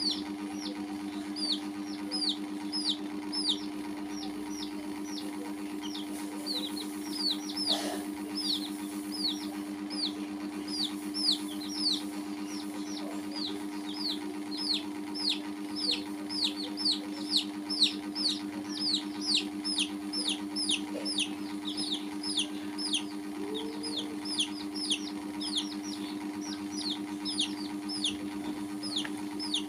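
Several baby chicks peeping continuously: short, high, downward-slurred peeps at about two to three a second, overlapping one another. A steady low hum runs underneath.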